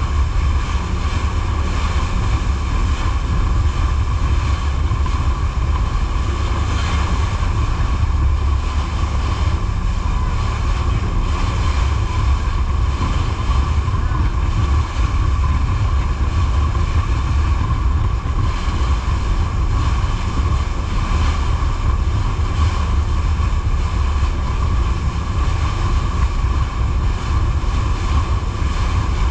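Jet boat under way: a steady engine drone with a constant whine, water rushing past the hull, and heavy wind buffeting on the microphone.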